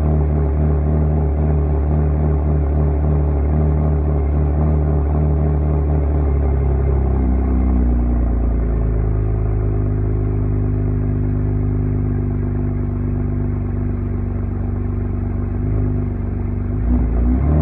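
Saab 9-3 turbocharged V6 running through a 3-inch turbo-back exhaust with the mufflers deleted and straight pipes, idling steadily. About halfway through, the idle drops to a lower, deeper note and holds there, with a slight swell near the end.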